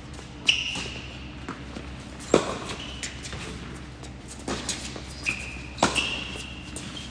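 Tennis ball struck by rackets in a doubles rally on an indoor hard court: four sharp hits about one and a half to two seconds apart, echoing in the hall, with a few short high squeaks between them.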